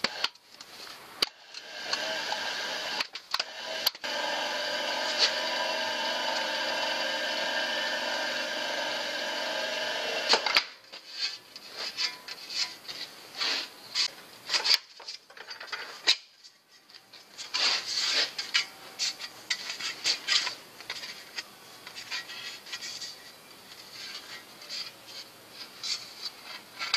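Slip roll machine rolling a sheet-metal bicycle mudguard into a curve: a steady running sound for about six seconds, then irregular metallic clanks and knocks as the piece is worked through the rollers and handled.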